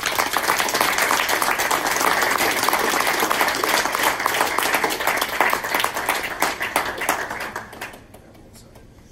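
Audience applauding, starting suddenly and dying away about eight seconds in.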